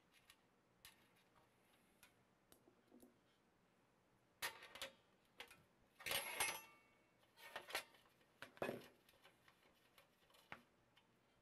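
Small metallic clicks and clinks of an open-end wrench working the nuts off a record player's potentiometer shafts, scattered and irregular. There is a louder clatter with a brief metallic ring about six seconds in.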